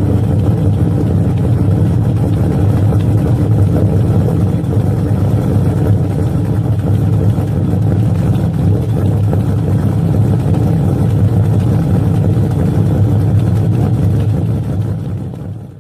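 Ford Taurus's 3.0L Vulcan V6, stroked to 3.3L with a stage 1 camshaft, idling steadily during a cold start. It is heard at the tailpipes through a free-flowing aftermarket exhaust: Jones Flow Pack muffler, third catalytic converter deleted, 3-inch center section. The sound fades out near the end.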